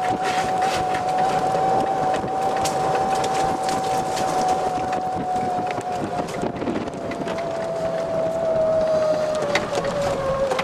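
Golf cart driving along a cart path: a steady whine that drops slightly in pitch near the end, with rattles and clicks from the cart over the path.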